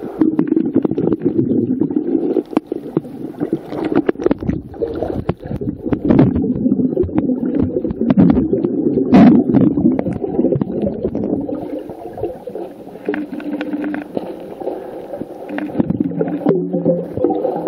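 Water heard underwater through a waterproof camera's sealed body: a muffled, low gurgling wash of moving water, broken by many small clicks and knocks.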